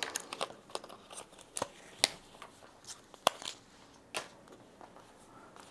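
A new pair of leather work gloves being opened up and handled: a scattering of sharp snips and clicks, spaced out over the first four seconds, with faint rustling between them.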